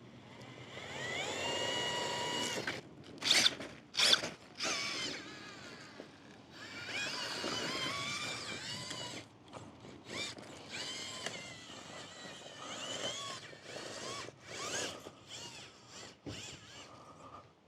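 Electric motor and gearbox of an RC rock-crawler buggy whining in spurts of throttle, the pitch rising and falling. Two sharp knocks come about three and four seconds in.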